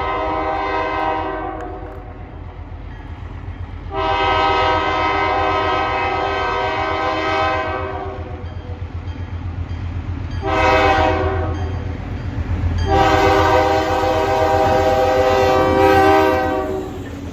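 Diesel locomotive air horn sounding the grade-crossing signal: the end of a long blast, then another long blast, a short one and a final long blast, over the steady low rumble of the locomotive's engine.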